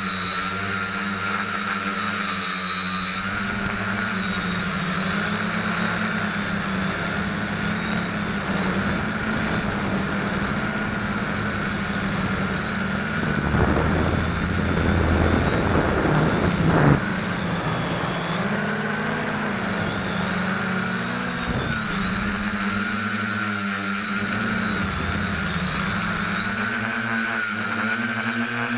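SK450KK2 quadcopter's electric motors and propellers whining, heard through a camera mounted on the quad's underside, the pitch rising and falling with the throttle. A few seconds past the middle a louder rushing noise joins in and stops suddenly.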